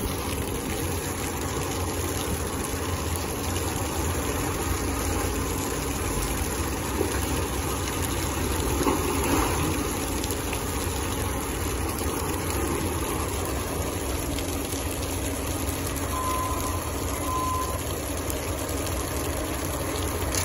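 Diesel engine of heavy equipment running steadily at a constant speed.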